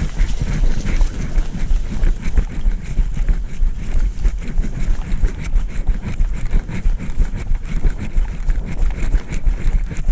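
Heavy wind rumble on the microphone, with irregular knocks and rustles of movement throughout.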